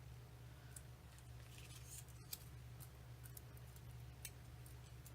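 Faint, scattered small clicks of mini dimensionals (foam adhesive pads) being handled and pressed onto paper pennant flags, over a steady low hum.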